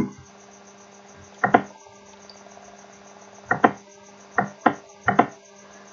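Computer mouse clicking: a quick pair of sharp clicks about a second and a half in, then several more, mostly in pairs, between about three and a half and five seconds in. A steady low electrical hum runs underneath.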